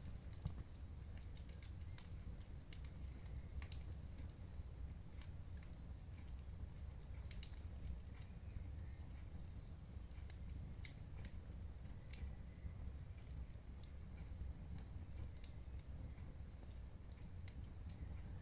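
Wood fire burning in a fireplace: a steady low rumble with scattered sharp crackles and pops at irregular intervals.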